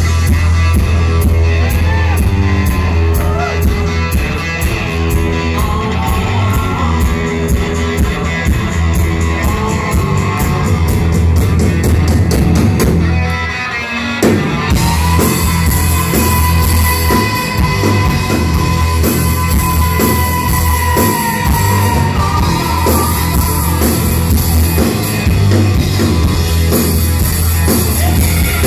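Rock band playing live and loud, recorded from within the crowd: electric guitar, bass and drums with singing. There is a brief break about fourteen seconds in, then the band comes back in under a long held high note.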